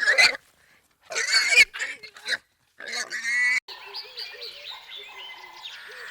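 Animal calls: four short, loud calls in the first few seconds, split by abrupt silences. They are followed by a steadier, quieter chorus of many small overlapping calls.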